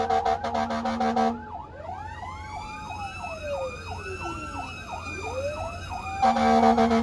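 Emergency vehicle siren: a rapidly pulsing electronic horn tone, then about a second in it switches to wailing and fast yelping sweeps sounding together, and the pulsing horn tone returns near the end.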